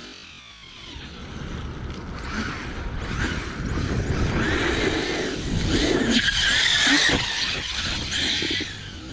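Large 12S electric RC truck running hard: motor and drivetrain whine with tyres spinning and skidding on loose ground. It grows louder to a peak about six to seven seconds in, then eases off.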